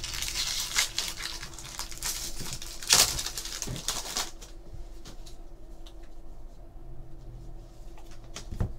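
Foil wrapper of a 2013 Topps Series 2 Jumbo baseball card pack being torn open and crinkled, with a loud crackle about three seconds in. After about four seconds it gives way to faint clicks and slides of the cards being handled.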